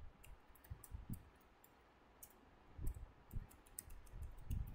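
Computer keyboard keys clicking in irregular runs of typing, with a lull of about a second in the middle.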